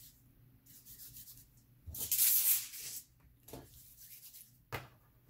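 A small ball of aluminium foil rolled between the palms, crinkling and rustling in short bursts; the loudest and longest burst comes about two seconds in and lasts about a second.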